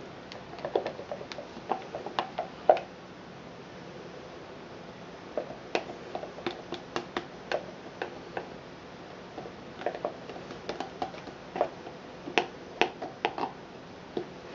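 Spatula scraping and tapping against the inside of a plastic cup while thick cold process soap batter is scooped out into the mold: sharp clicks and taps in three bouts, the loudest just under three seconds in.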